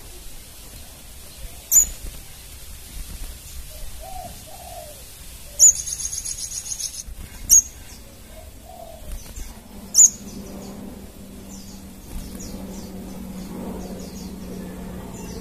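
Crimson sunbird calls: four sharp, very high single chips spread a few seconds apart, with a rapid high trill about six seconds in, then a run of quick thin high notes over a low steady hum near the end.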